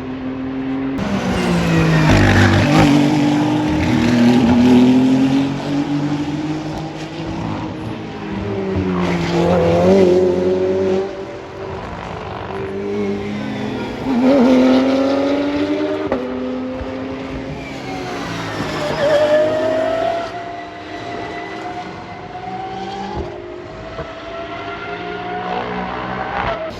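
Several racing cars passing one after another at speed on a circuit. Each engine note rises and then falls as the car goes by, with about five loud passes.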